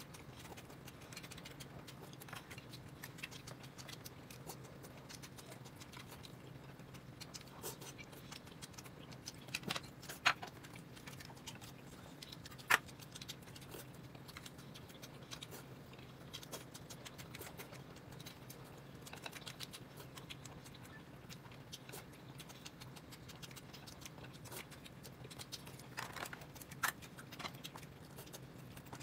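Quiet eating sounds: scattered soft clicks and taps of tableware, with a few sharper knocks around 10, 13 and 27 seconds in, over a low steady hum.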